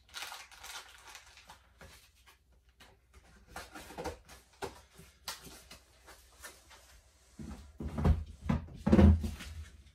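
Packaging being handled during unboxing: scattered rustles and light knocks, with two heavier dull thumps near the end.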